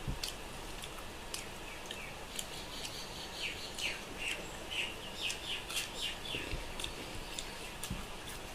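A quick run of about ten short, falling chirps in the middle, from a small creature. Under it, faint scattered clicks and ticks come from fingers mixing rice on a steel plate.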